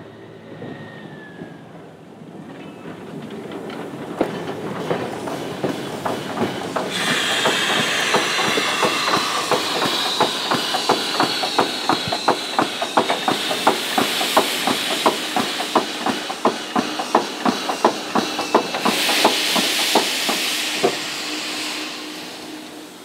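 Steam locomotive 50 3654-6, a German class 50 2-10-0, rolling slowly past with a quick, regular clicking from its wheels and running gear. Steam hisses from the open cylinder drain cocks from about seven seconds in, with a louder burst of hiss near the end.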